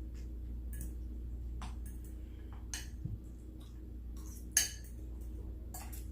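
Eating sounds at a plate of oxtails, rice and potatoes: a handful of short, sharp clicks and clinks spread unevenly, the loudest about four and a half seconds in, over a steady low hum.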